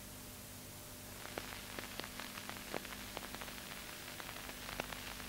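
Steady hiss and low hum of an old film soundtrack running blank, with irregular crackling clicks and pops that begin about a second in.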